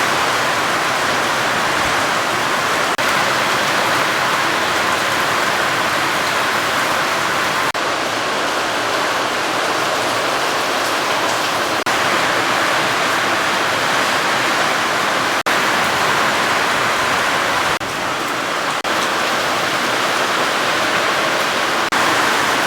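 Heavy monsoon rain falling as a loud, steady, even hiss of water.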